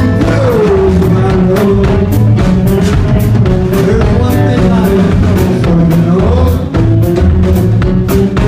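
Live rock band playing: a male singer holds long notes that slide in pitch, over electric guitars, bass and a drum kit. The drummer keeps a steady cymbal beat, about three strokes a second.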